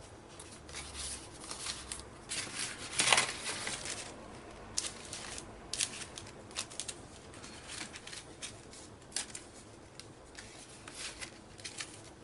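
Paper rustling and light clicks of small craft pieces being handled, with a louder rustle about three seconds in.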